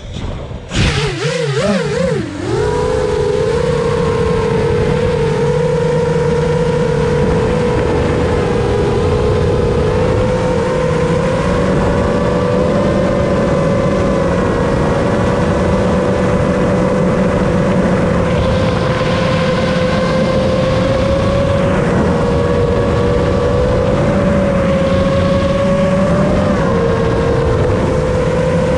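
Brushless motors and propellers of a 7-inch long-range FPV quadcopter spinning up with a wavering pitch for about two seconds at takeoff, then a steady high whine in flight that shifts a little in pitch with throttle. Twice in the second half a louder rushing hiss joins it.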